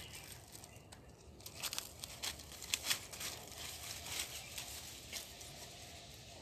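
Dry leaf litter and twigs crackling and rustling underfoot as a small dog walks and sniffs through it, in short irregular crackles that cluster in the middle of the stretch.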